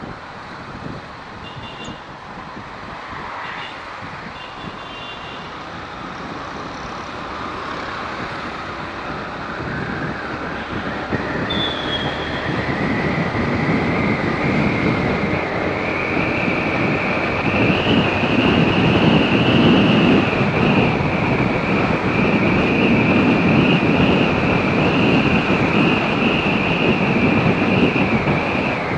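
Motorcycle on the move, its engine and road noise growing louder as it picks up speed. A whine rises in pitch over several seconds and then holds steady. A few short high beeps sound about two to four seconds in.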